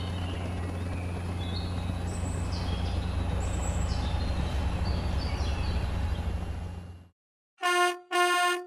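Cartoon drone's steady propeller hum with birds chirping, fading out about seven seconds in. Then two short horn toots from a cartoon truck.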